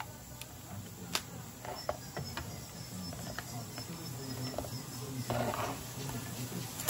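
Faint scattered clicks and cracks of a cooked crab's shell being handled and pried apart, then a short crunch a little past five seconds in as a cleaver cuts into the shell. A low steady hum runs underneath.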